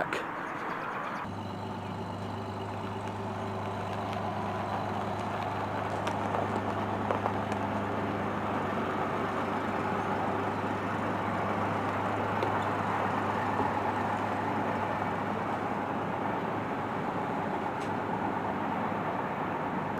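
A vehicle engine idling steadily, an even low hum at a constant pitch that sets in about a second in.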